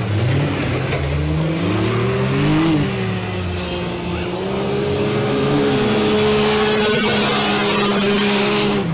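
Several UTV engines revving up and down at once, their pitches rising and falling past each other. A hiss builds in the second half and cuts off suddenly at the end.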